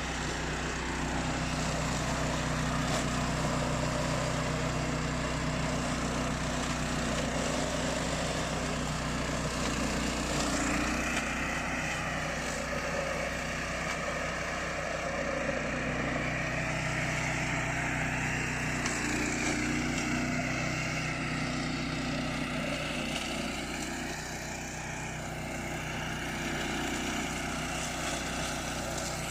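Beast 800 remote-control flail mower running steadily, its engine humming. From about ten seconds in, a higher whine joins it and wavers up and down.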